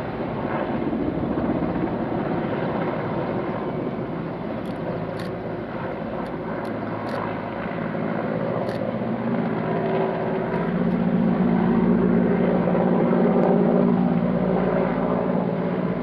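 Firefighting helicopter flying over, a steady drone of rotor and engine that grows louder in the second half as it comes closer.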